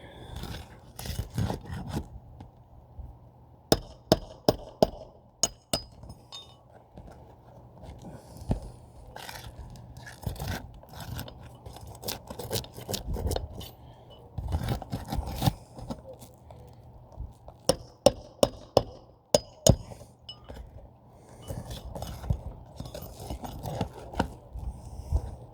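Hand tools clinking, tapping and scraping on hard parts, with sharp knocks in irregular runs, over a steady low hum.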